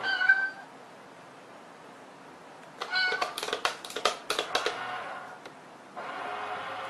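A domestic cat meowing: one short high meow at the start, then more meows mixed with sharp clicks and knocks about three to five seconds in.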